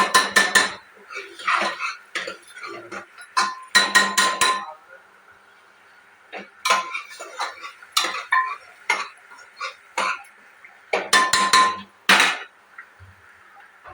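A metal spoon clattering and scraping against a metal cooking pan, in several bursts with short pauses between them, the strokes ringing.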